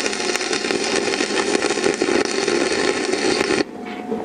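Stick-electrode arc welding on steel: the arc crackles and sizzles steadily, then cuts off suddenly about three and a half seconds in as the arc is broken.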